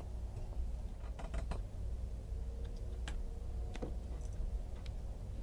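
Scattered small clicks and ticks of fingers handling and twisting thin insulated wires on a small circuit board, over a steady low hum.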